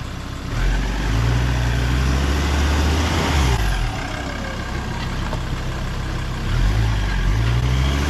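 Car engine revving under load as the vehicle is driven up onto boulders to level it. It picks up about half a second in, eases off midway, and pulls again later.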